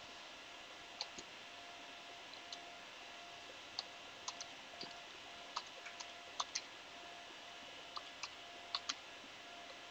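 Slow, uneven typing on a computer keyboard: about sixteen faint key clicks spaced irregularly, some in quick pairs.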